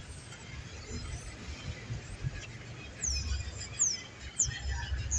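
Outdoor ambience: a bird gives a few short, high, falling chirps over a low, uneven background rumble.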